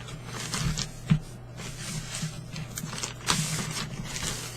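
Papers and packaging rustling and knocking as the contents of a box of comics and posters are handled, with a sharp knock about a second in and a longer rustle near the end. A steady low electrical hum lies underneath.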